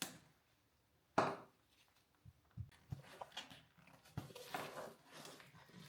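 Faint handling sounds from working on a wiring harness and its rubber sleeve: a sharp click about a second in, a few light knocks, then a soft rustle of wires and rubber.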